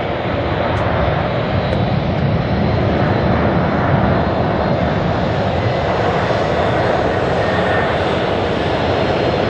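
Boeing 787-10's Rolls-Royce Trent 1000 jet engines running on the landing roll just after touchdown: a loud, steady jet noise that swells slightly in the first second.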